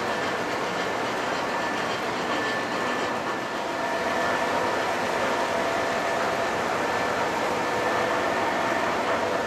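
O scale model trains running on the layout: wheels rolling over the track with a steady whine and a few steady high tones.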